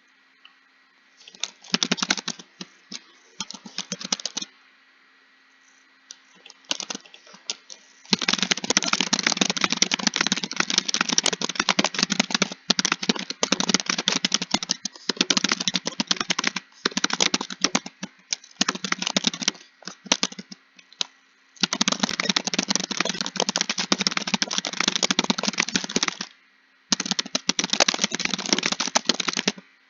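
Computer keyboard being typed on quickly: long runs of rapid key clicks, broken by a few short pauses, the first about four seconds in and a brief one near the end.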